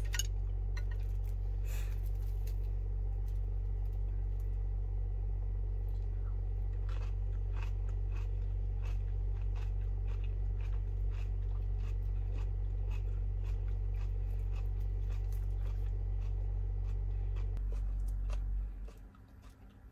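Close-up eating sounds: chewing and crunching, with light clicks and crackles of chopsticks and plastic wrap. Under them runs a steady low hum that drops out near the end.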